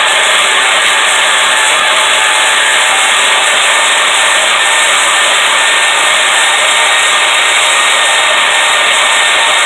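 Power cutting tool running steadily and loudly while it cuts through quarter-inch-thick steel flat bar.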